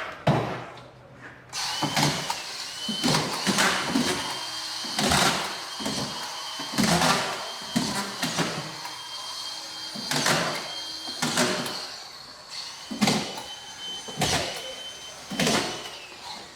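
A power tool's motor spins up about a second and a half in and runs with a steady high whine, breaking off briefly a couple of times, over irregular knocks and thuds.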